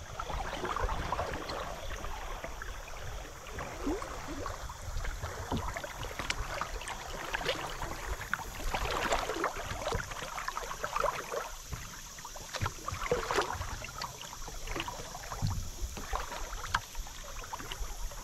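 River water lapping and gurgling against a kayak's hull as it drifts, in many small irregular splashes over a low rumble.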